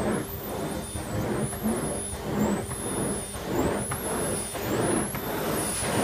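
Numatic Henry HVR200-12 vacuum cleaner running on its low power setting, its plain suction floor tool pushed back and forth over carpet. A high motor whine wavers up and down in pitch, and the sound swells with each stroke of the floor head, about once a second.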